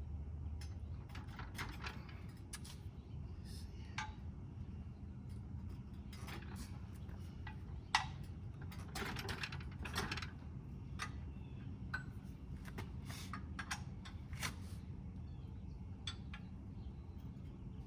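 Scattered metal clinks and knocks from handling the Z-Rator aerator attachment while it is lined up on the mower, with one sharp knock about eight seconds in, over a steady low hum.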